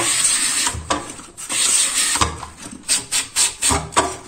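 Raw pumpkin being slid over a mandoline slicer's blade, each stroke a rasping scrape as a thin slice comes off. Two long strokes first, then quicker, shorter strokes, about three or four a second, from about halfway.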